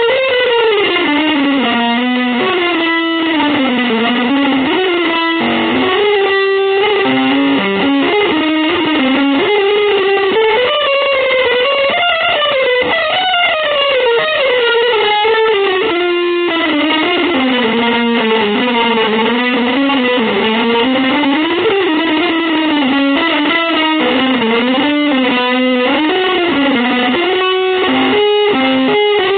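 Electric guitar with effects playing a long, winding melodic line of sustained notes that slide up and down in pitch.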